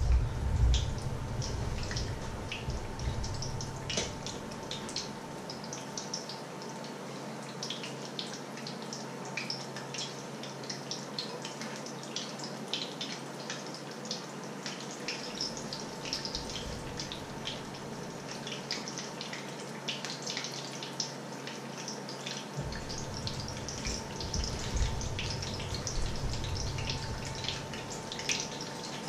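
Batter fritters frying in hot oil in a frying pan: a steady sizzle dense with small pops and crackles.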